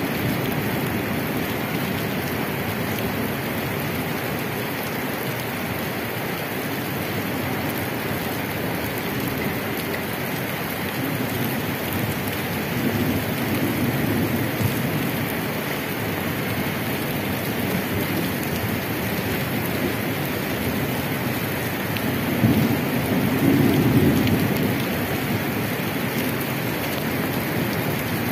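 Steady rain falling on a wet paved street and puddles, with a low rumble swelling twice, about halfway through and more strongly near the end.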